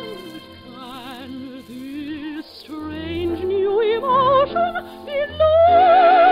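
Orchestral music: a slow melody with vibrato, soft at first and swelling louder toward the end.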